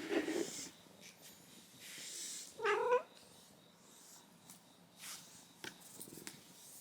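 A cat meowing: a short call at the start, then a louder, clear meow about two and a half seconds in.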